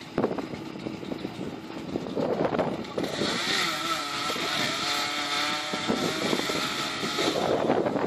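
An engine runs for several seconds with a slightly wavering pitch, starting about three seconds in and stopping near the end.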